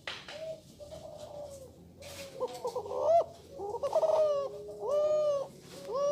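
Spotted dove (tekukur) cooing: a run of rounded, pitched coo notes, closely bunched in the middle and then spaced out, from an F3 Kelantan × Sinom multi-kuk crossbred songster.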